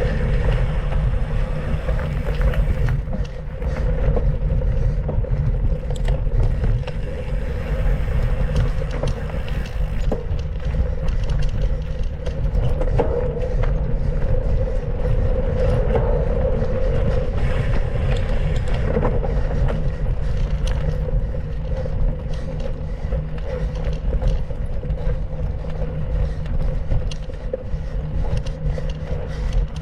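Mountain bike ridden along a dirt trail: steady wind buffeting on the microphone over the rumble and scrape of the tyres, with light rattles from the bike.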